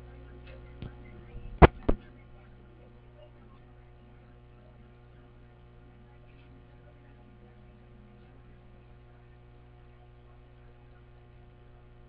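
Steady electrical mains hum, with a few sharp knocks in the first two seconds, the loudest about a second and a half in.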